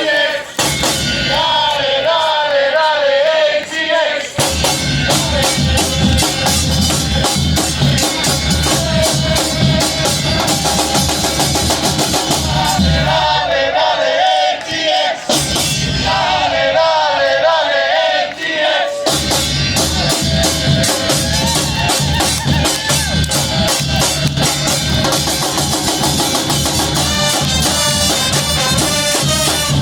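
A murga street band playing live. A wavering melody over light percussion twice gives way to full, heavy drumming, about four seconds in and again near the twenty-second mark.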